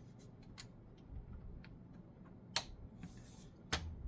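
Light clicks and taps of a laptop's plastic case parts being handled and fitted together at the hinge, with two sharper clicks, one about two and a half seconds in and one near the end.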